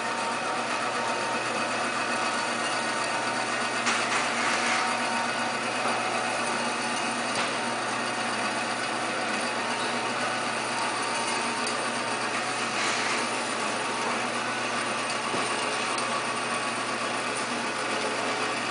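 Turnpro 10-inch by 16-inch horizontal band saw, a 2 hp three-phase machine, running steadily as its blade cuts through stock under automatic down feed. Brief louder rasps come about four seconds in and again past the middle.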